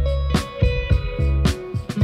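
Background music: guitar over a steady beat.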